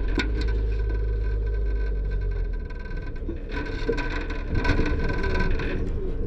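Peugeot 205 running over rough ground: a low engine and road rumble with steady whining tones, and many short knocks and rattles from the body. The rumble drops off about two and a half seconds in.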